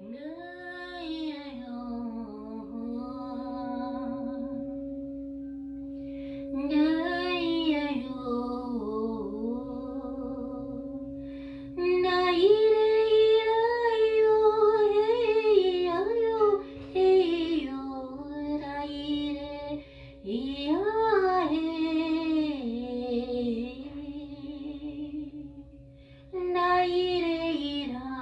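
A woman's voice singing wordless, gliding tones in long phrases with short breaks, over the steady, sustained ring of a singing bowl.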